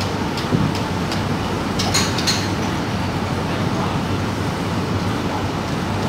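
Steady low rumble and hum of room noise, with a few faint clicks about two seconds in.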